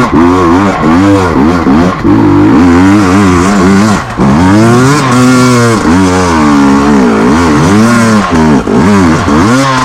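2023 KTM 250 EXC TPI two-stroke single-cylinder engine revving up and down over and over as the bike is ridden, its pitch rising and falling about once a second.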